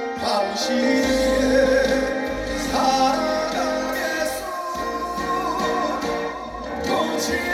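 Live trot song: a male singer singing into a handheld microphone over backing music with a bass line, played through a stage sound system.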